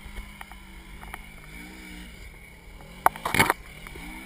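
Side-by-side UTV engine revving up and down in repeated surges as it works through a muddy water crossing. A short, loud burst of noise comes about three seconds in.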